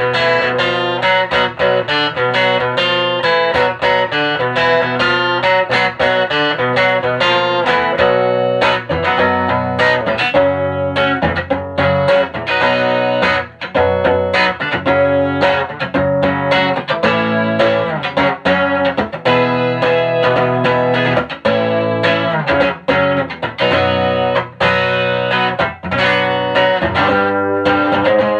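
12-string guitar strummed in a steady, punchy rhythm through a 1965 WEM Control ER15 valve amplifier head with push-pull EL84 output valves, played through the amp's second channel as a sound test.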